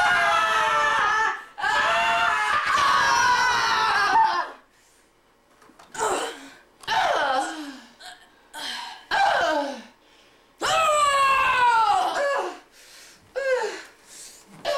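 Young people's voices laughing and shrieking in play, first in two long stretches, then in a series of separate falling cries with short gaps between.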